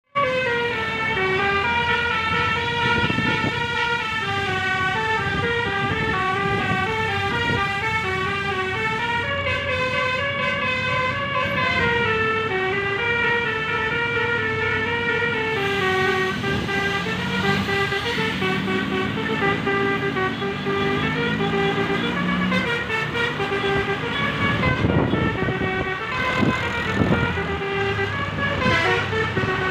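Multi-tone 'telolet basuri' musical bus horn on an Arofah Trans bus, playing a running melody of short stepped notes without a break.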